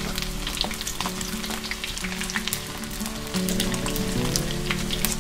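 Batter-coated shredded chicken deep-frying in hot oil in a wok: a steady sizzle with many small crackling pops. Background music plays underneath.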